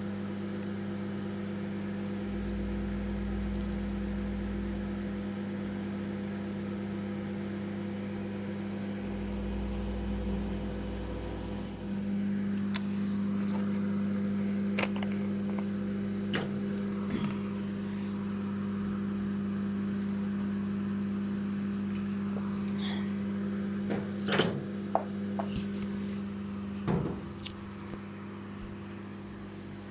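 Microwave oven running with a steady electrical hum while it heats pieces of dried pork skin (chicharon) to puff them up. A few sharp clicks come through in the second half.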